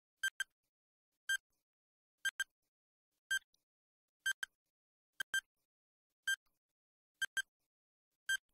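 Countdown-timer ticking sound effect: short, sharp, pitched ticks about once a second, some in quick pairs, like a clock ticking.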